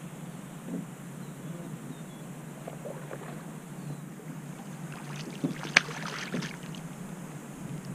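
A hooked freshwater drum thrashing and splashing at the water's surface beside a boat, a burst of splashes with one sharp slap about six seconds in. Steady low wind-and-water noise runs underneath.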